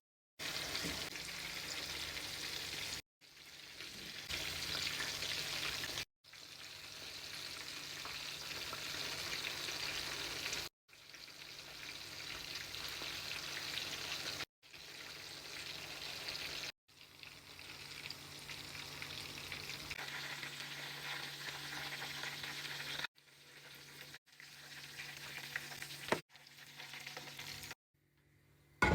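Food frying in hot oil in a pan, a steady sizzle. The sound cuts off abruptly and starts again several times.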